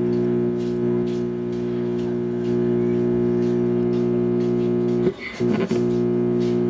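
Loud, steady electrical hum and buzz from the power amplifier's speaker, one unchanging pitched drone with many overtones, picked up through a hand-held input lead. About five seconds in it breaks up briefly into crackles as the contact at the connector is disturbed.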